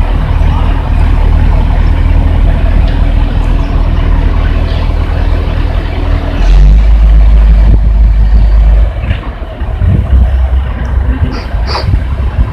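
Diesel truck engine running steadily, driving the truck-mounted loader crane as it lifts a cement silo; the low rumble grows heavier about halfway in, and a short sharp clink sounds near the end.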